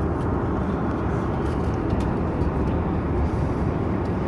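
Steady, even cabin noise of an airliner in flight, engine and airflow noise sitting low, with a few faint clicks.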